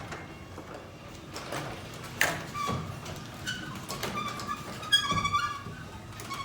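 Garage door traveling on a 1.25 hp belt-drive opener. The opener itself runs quietly, while the door gives short high squeaks and a few knocks, thickest about five seconds in. The squeaks come from the door and not the opener, which the owner means to fix.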